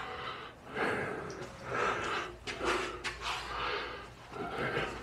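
A man breathing in and out close to the microphone through a face mask, roughly one breath a second.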